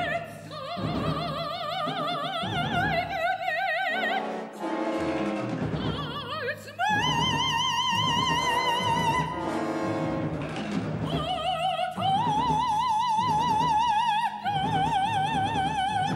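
Operatic dramatic soprano singing long, high held notes with a wide vibrato, in several phrases with short breaks between them, over orchestral accompaniment. The highest and longest note comes about seven seconds in.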